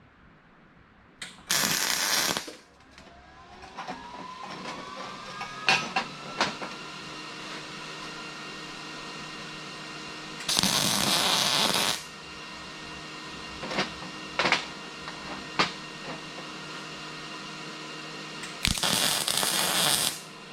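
MIG welder laying three short tack welds, each a burst of arc crackle lasting about a second, with the machine humming steadily and a few sharp clicks between the tacks.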